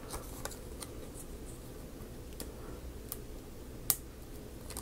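Thin plastic window sheet handled and picked at by fingernails to find the edge of its protective film: scattered small sharp ticks and crinkles, the loudest about four seconds in.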